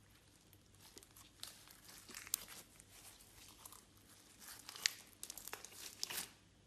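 Clear slime being squeezed and stretched by hand, giving off irregular sticky crackles and small pops in several clusters. The crackling stops just before the end.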